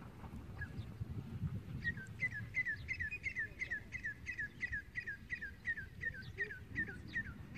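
A bird calling in a rapid series of short, downward-sliding chirps, about three a second, starting about two seconds in, over a low steady noise.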